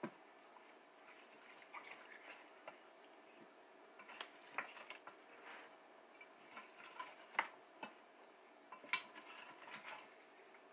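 Wooden spoon stirring a chunky stew mixture in an enamel pot: faint, irregular clicks and taps of the spoon against the pot, scattered through the stirring.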